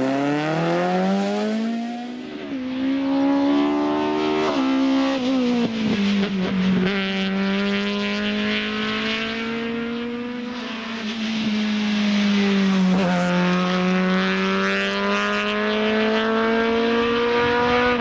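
Peugeot 206 rally car engine revving hard at racing speed. Its pitch climbs through each gear and drops sharply at several gear changes, and it is held high for long stretches.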